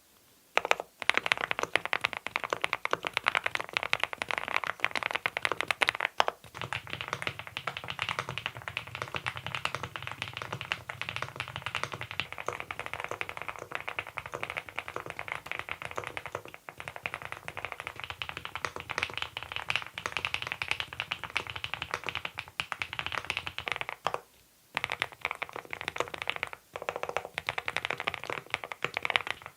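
Monstargear Ninja87 Pro ALU aluminium-case mechanical keyboard being typed on fast and continuously, a dense run of keystroke clacks with a few short pauses. About six seconds in the sound changes and takes on a deeper low end, as the Hanbaekok and Adelie switches are typed in turn for comparison.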